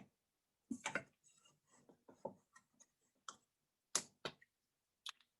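A few faint, irregularly spaced clicks and taps in an otherwise quiet room.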